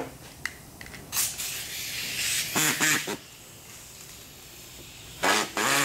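A pneumatic cutting tool is run in short bursts against a fiberglass panel. Each burst is a brief whine with a hiss that rises and falls in pitch, and there are a few light clicks between the bursts.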